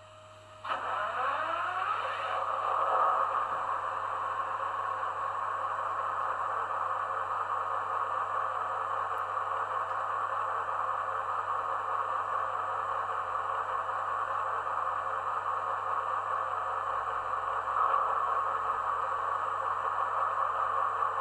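Sound-equipped model diesel locomotive's engine sound starting up: it comes in suddenly about a second in with a brief sweep in pitch, then runs steadily as an idling diesel engine through the model's small loudspeaker.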